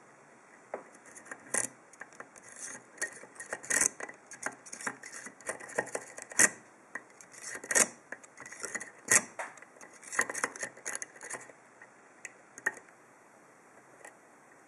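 Klom long hook pick scraping and clicking against the pin stacks of a split-core 7-pin brass cylinder lock held under a tension wrench: an irregular run of small, sharp metallic clicks and scrapes that thins out to a few stray clicks over the last few seconds.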